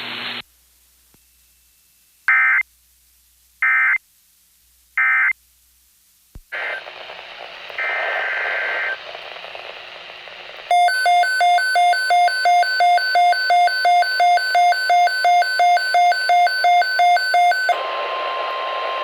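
Emergency Alert System signalling over a weather-radio feed: three short electronic data bursts (screeches) about a second and a half apart, typical of the end-of-message code at the close of an alert. Then comes radio hiss with a brief burst, then a loud beeping alert tone at about two beeps a second for some seven seconds, then hiss with a faint steady tone.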